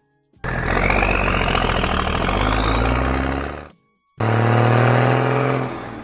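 Cartoon truck engine sound effect: a rumbling engine burst with a whine rising in pitch, then, after a short gap, a steady low engine drone that fades out near the end. Soft background music plays underneath.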